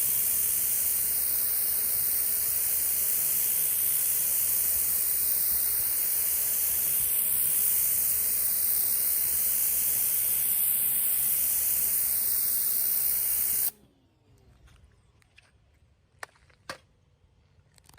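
Stihl RE90 electric pressure washer blasting water through its rotary nozzle onto concrete: a steady, loud spray hiss with a faint motor hum beneath. The spray cuts off suddenly about three-quarters of the way through, leaving near quiet with a few small clicks.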